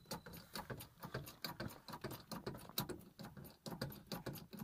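Rapid, irregular light taps or clicks, several a second, with no steady beat.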